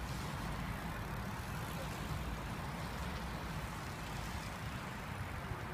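Steady low rumble with a hiss above it: outdoor background noise with no distinct event standing out.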